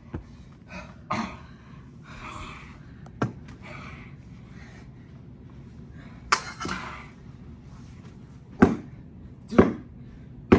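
Wrestlers' blows and falls: four sharp thuds or slaps, the loudest in the second half, with breathy grunts between them.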